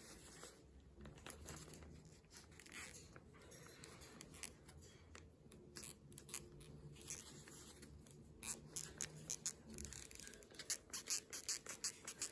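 Cracked plastic headband of a Corsair Virtuoso MAX headset creaking and crackling as it is flexed, sounding its break. Scattered faint clicks give way to a quick, louder run of clicks in the last few seconds.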